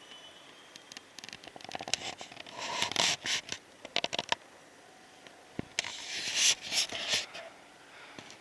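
Scratching and scraping in two bouts, about two seconds in and again about six seconds in, each a cluster of quick clicks and rasps.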